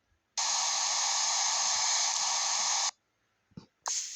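Aerosol hair spray hissing in a long burst of about two and a half seconds, then a second burst starting near the end.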